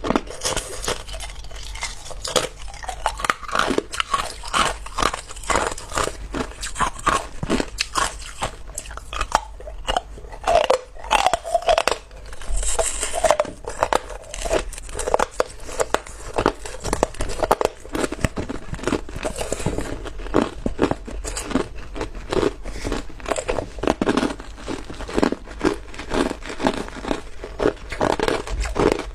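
A person biting and chewing chunks of clear ice close to the microphone: quick, irregular crunches and cracks, several a second, with no pause.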